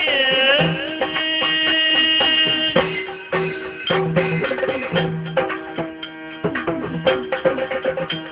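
Yakshagana instrumental interlude: hand drums beating a steady rhythm under held notes from a melodic accompaniment, with the singer's last note trailing off at the start.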